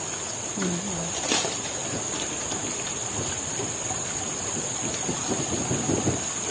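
Steady high-pitched insect drone over the even rush of river water, with a short murmur of a voice in the first second and a single light clatter about a second and a half in.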